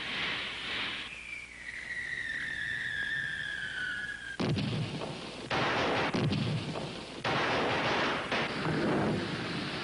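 Fireworks: a whistle sliding down in pitch for about three seconds, then a string of explosions, each starting abruptly, from a little under halfway in.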